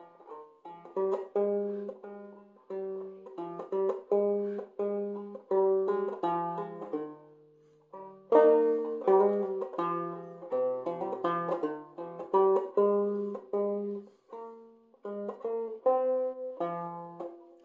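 Five-string banjo in G minor tuning (second string lowered to B flat) playing a slow melody note by note, with hammer-ons and pull-offs and a brief pause about eight seconds in before the phrase starts again.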